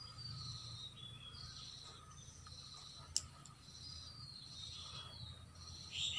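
Small birds calling in the background: short falling whistled chirps, repeated several times over a low steady hum, with one sharp click about three seconds in.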